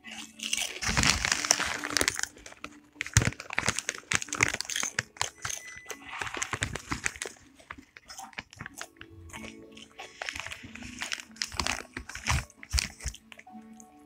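Close-up crunching and chewing of a crunchy snack: irregular crackly crunches that ease off briefly about halfway through, then pick up again.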